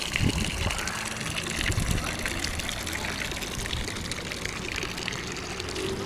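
Water running steadily from a tap and splashing as hands and head are wetted under it.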